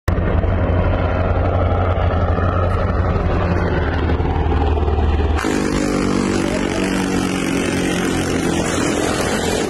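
7.62 mm minigun firing a continuous stream, a steady buzzing drone at a very high rate of fire. About five seconds in, the sound changes abruptly and becomes brighter and harsher.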